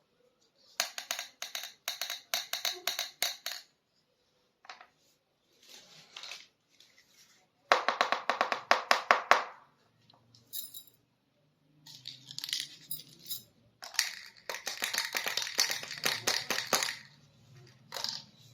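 Miniature plastic toy kitchen pieces clicking and clattering as they are handled, in several runs of quick light taps with short pauses between.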